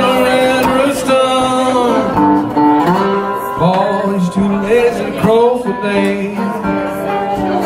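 Metal-bodied resonator guitar playing a slow blues with notes that bend and glide, and a man singing over it.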